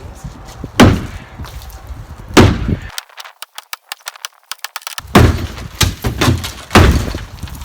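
Sledgehammer blows striking the shed, about five heavy hits, each with a short ringing tail. Between the second and third blow comes a quick run of small clicks and crackles, like debris clattering.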